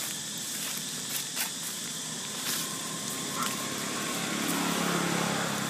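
Steady outdoor background hiss with a few faint ticks, and a low engine hum coming in about four and a half seconds in.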